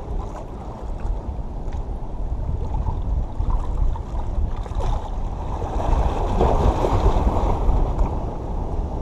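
Sea waves washing against the rocks of a jetty, swelling into a louder surge of surf about six seconds in, over a low rumble of wind on the microphone.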